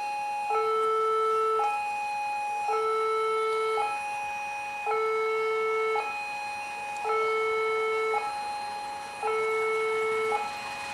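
Railway level-crossing warning alarm sounding an electronic two-tone chime, a lower tone and a higher tone alternating about once a second, signalling that a train is approaching the crossing.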